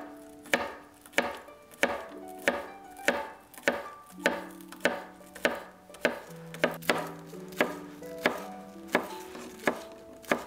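Chef's knife chopping chives on a cutting board: a steady run of sharp knocks, about three every two seconds, with soft plucked-string background music underneath.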